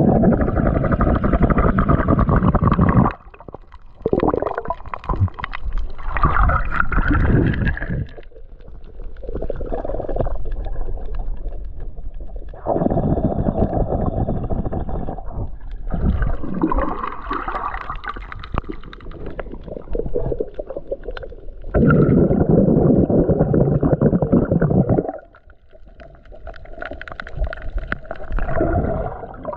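Muffled underwater noise on a submerged camera's microphone: water gurgling and a low rumble as the camera and hand move through the water. It drops and changes abruptly several times.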